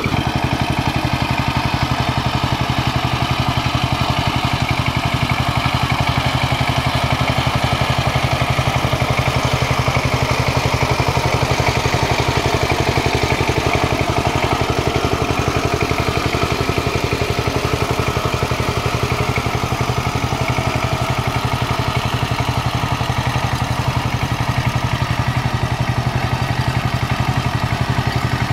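Kamco power tiller's single-cylinder diesel engine chugging steadily at an even pace while its rotary tines churn through wet paddy mud.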